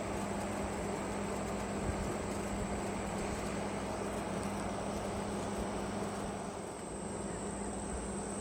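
A steady mechanical drone with a constant low hum, unbroken throughout.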